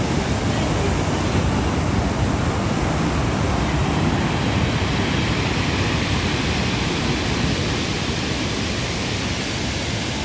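Steady rushing noise of the Black Sea surf, with no separate wave breaks standing out.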